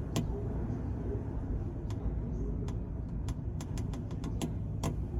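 Car ferry Kiso under way: a steady low rumble of the ship, with a scattering of short sharp clicks through it.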